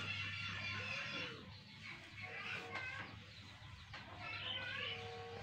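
Chickens clucking, with short calls coming in a cluster midway and again near the end.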